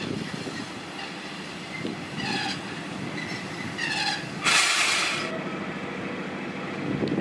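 SM42 diesel shunting locomotive rolling slowly with its engine running. Two short, shrill tones sound about two and four seconds in, followed by a loud burst of hiss lasting about half a second.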